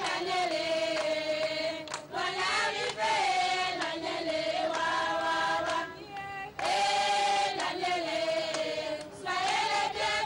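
A group of high voices, mostly women's, singing together in unison in long held phrases. There are short breaks about two, six and nine seconds in.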